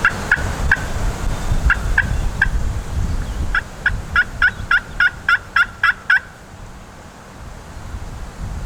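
Wild turkey yelping: three runs of short, sharp notes about four a second, the last run about a dozen notes long, over wind noise on the microphone.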